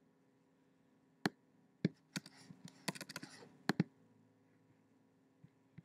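Computer keyboard keystrokes and clicks: a scattered run of about a dozen sharp taps between about one and four seconds in, then two faint ticks near the end.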